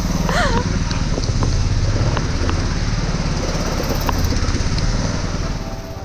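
Small boat's outboard motor running steadily while the longboat is under way on the river.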